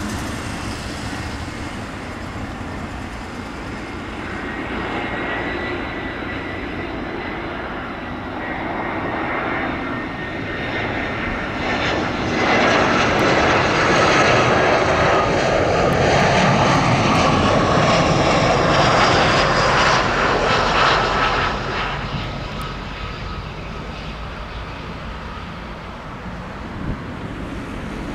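Jet airliner's engines passing close by: a rumble with a thin whine that builds, is loudest for about ten seconds in the middle, then fades as the aircraft moves away.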